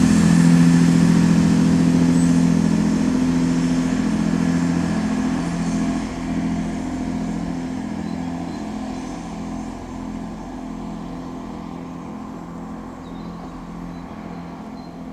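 Great Western Railway Class 165 Turbo diesel multiple unit (165132), with its Perkins diesel engines, pulling away from a station. The engine hum is steady and fades gradually as the train moves off into the distance.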